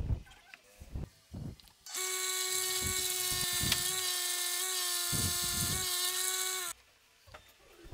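Electric water-pump motor driving a homemade sanding disc, running with a steady whine and hiss as a wooden block is sanded on it; it starts about two seconds in, runs for about five seconds and cuts off abruptly. A few light knocks of handling come before it.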